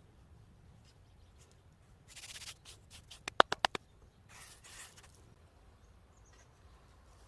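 A short scraping rustle, then a fast run of about six sharp clicks within about a second, then another brief rustle.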